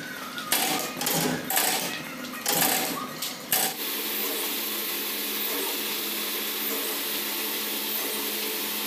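A power press cutting flip-flop soles from a foam sheet, striking several times at uneven gaps. About four seconds in, this gives way to the steady hum of a running machine motor.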